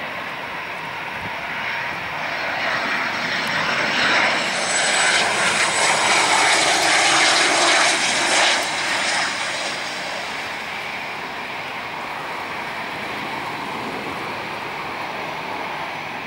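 Twin Pratt & Whitney Canada PW545 turbofans of a Cessna Citation XLS business jet on landing approach. The jet noise swells to a loud peak as the aircraft passes, about four to nine seconds in, then drops back to a steady lower level.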